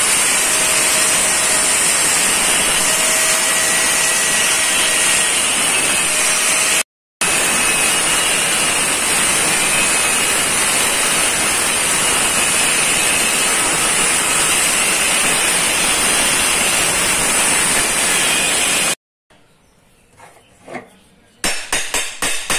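Loud steady hissing noise with faint steady tones in it. It breaks off for a moment about seven seconds in and stops abruptly near the end.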